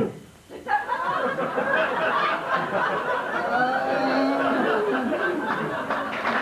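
Theatre audience laughing: many people at once, breaking out about a second in and going on steadily.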